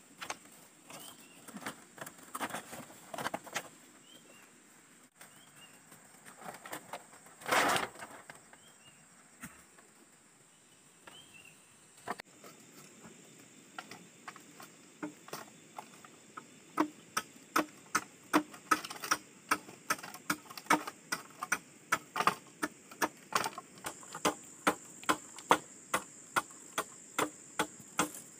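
Sharp chopping strokes of a blade on bamboo, scattered at first, then steady at about two a second from a little past halfway. A short burst of noise comes about a quarter of the way in, and a steady high insect drone runs underneath.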